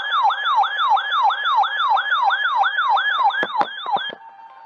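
Weather radio receiver's electronic siren alert: a falling whoop repeating about three times a second. A few clicks come near the end, then it cuts off.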